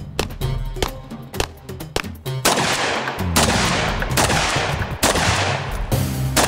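Background music, then from about two and a half seconds in a string of gunshots, roughly one a second, each with an echoing tail.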